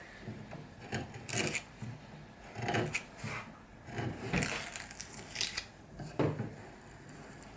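Wood being worked by hand on a bench: short, irregular rubbing and scraping strokes with light knocks, about one a second.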